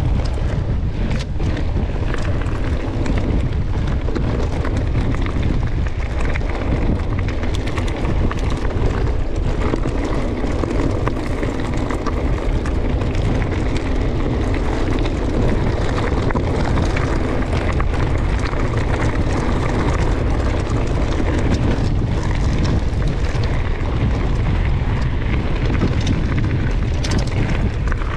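Wind buffeting the microphone of a handlebar-mounted action camera on a mountain-bike descent, mixed with the rumble of tyres on a dirt and gravel track. Now and then there is a brief click or knock as the bike goes over bumps.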